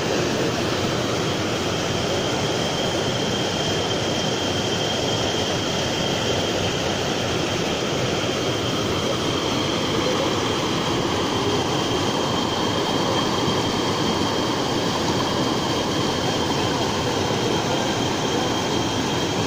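Rocky mountain stream rushing over boulders and a small waterfall: a steady, unbroken sound of white water.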